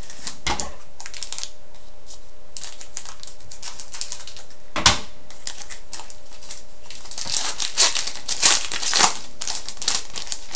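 Hockey trading cards and a foil card-pack wrapper being handled: cards sliding and tapping, with one sharp click about halfway through, then dense crinkling of the pack wrapper from about seven seconds in as the next pack is picked up and opened.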